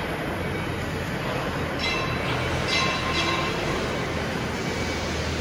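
Factory machinery running with a steady rumble and low hum, and light metallic clatter about two and three seconds in.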